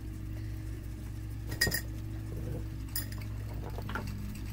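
Small makeup containers clinking against each other as they are picked through, three light clinks, the first the loudest, over a steady low hum.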